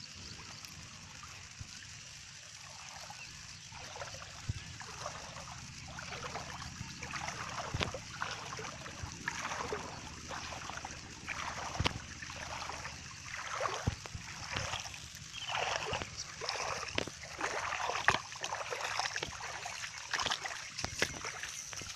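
Footsteps wading through shallow water and wet mud, a splash or slosh about once a second. The splashes start a few seconds in and grow louder and more frequent toward the end.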